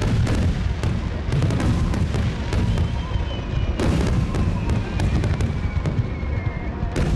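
Fireworks finale: a dense, continuous barrage of deep booms with sharp cracks and crackling layered over one another. A high whistling tone slowly falls in pitch from about three seconds in.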